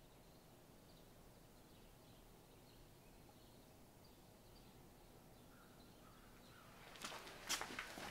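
Near silence: faint room tone with faint, scattered bird chirps. About seven seconds in, a quick flurry of sharp rustles and clicks begins, the sound of clothing and movement as two people embrace.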